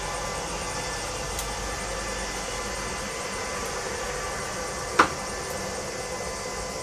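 Steady background hum with a single sharp click about five seconds in: the plastic latch of an engine wiring connector snapping loose as it is unplugged.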